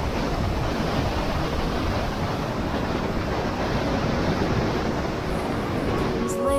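Mountain stream rushing through a narrow rock gorge: a steady, even rush of fast water. Music tones come in just before the end.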